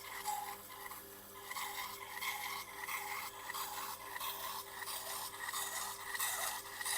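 Knife blade stropping on kangaroo tail leather: an uneven scraping rub that swells and fades over a steady low hum. The leather is bumpy, so the rub runs rough.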